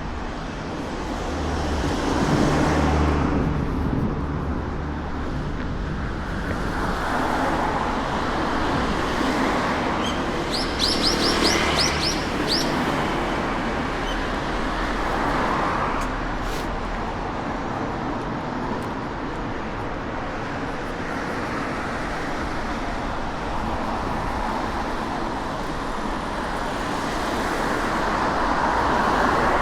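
Road traffic, several cars passing one after another in slow swells of noise. A bird gives a quick run of high chirps about eleven seconds in.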